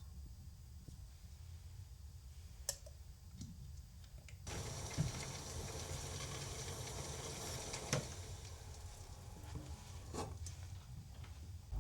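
Hot oil in a frying pan starts sizzling suddenly about halfway through, as food goes into the pan, and keeps sizzling steadily; a few sharp clinks of a utensil are heard.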